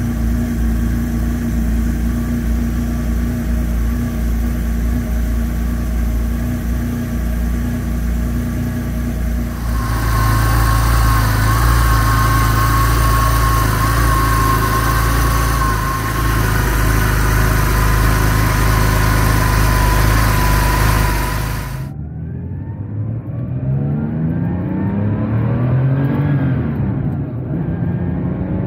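1977 Porsche 911 Turbo's turbocharged air-cooled flat-six idling just after a cold start, first heard from the cabin. About ten seconds in it is heard from the open engine bay, louder, with a steady whine over the idle. Near the end the car is driving, the engine note rising under acceleration and then falling through a gear change.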